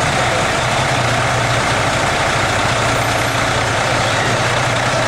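Fire engine's engine idling steadily: a low, even hum under a constant rushing noise.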